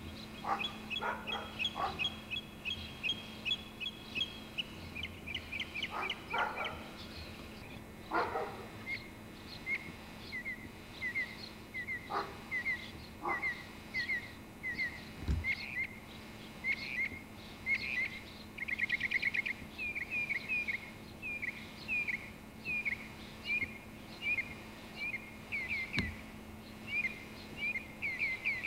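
A songbird singing short whistled phrases, repeating each many times before switching to another, with a quick trill about two-thirds of the way through. A low steady hum runs underneath.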